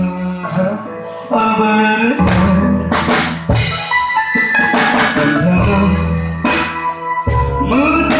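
Live band music: electronic keyboard playing sustained chords and a melody over a drum kit, with bass drum and snare hits.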